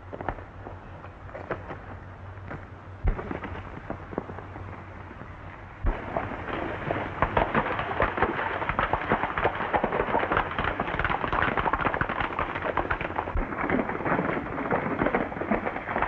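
Hoofbeats of several horses galloping, a dense clatter that grows louder about six seconds in, with a few sharper knocks before that.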